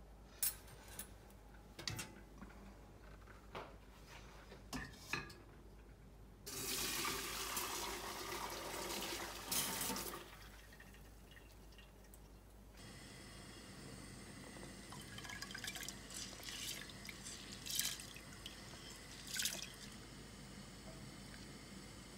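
Stainless-steel pots and a colander clinking, then liquid poured from a pot through a stainless-steel colander into a pot below, splashing for about four seconds. Later a steady faint hiss from a pot on a gas stove, with a few sharp clinks.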